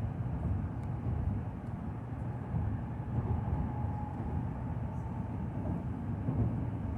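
Shinkansen train running at speed, heard inside the passenger car: a steady low rumble of running noise.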